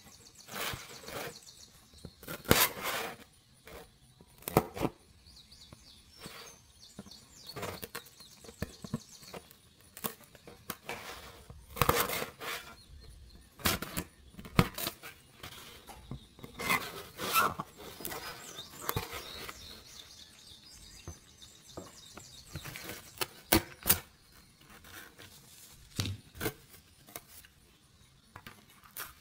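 Scissors cutting and hands handling stiff printed card from a model kit: irregular snips, scrapes and rustles of card, with a few sharper clicks.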